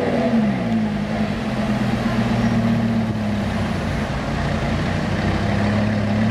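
Car engine running, its pitch falling over the first second or so as the revs drop, then holding a steady drone that rises slightly near the end.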